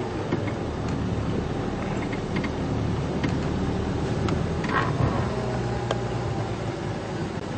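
Safari game-drive vehicle's engine running as it drives along a bumpy dirt track, with a few knocks and rattles from the body over the ruts.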